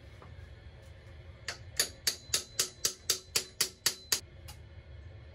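A quick run of about ten metallic strikes, roughly four a second, each with a short ringing note, stopping after a few seconds.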